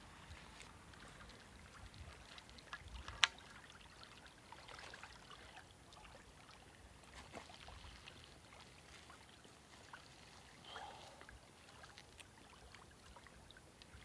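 Faint water splashing and scattered handling sounds as a large carp is lifted out of the lake at the shore, with one sharp click about three seconds in.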